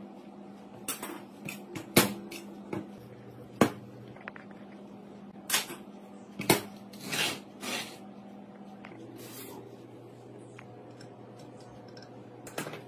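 Clicks, knocks and clanks of metal tools and parts being handled on a steel workbench: a screwdriver working the screws of an electric water-pump motor's base plate, then the motor being lifted, turned and set down. A faint steady low hum runs under it.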